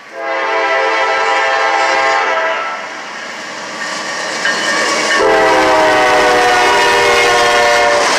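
NS (Dutch Railways) train sounding its horn twice: a blast of about two and a half seconds, then after a short gap a second, longer blast. The low rumble of the approaching train rises under the second blast.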